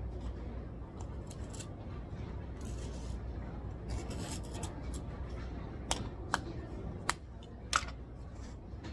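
Study-room ambience: a steady low hum, soft rustling a few times, and four small sharp clicks or taps close together in the second half, the loudest near the end.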